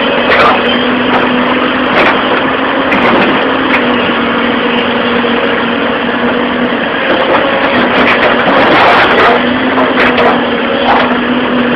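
A construction machine's engine running steadily with a constant hum, while short clicks and knocks come through every second or so.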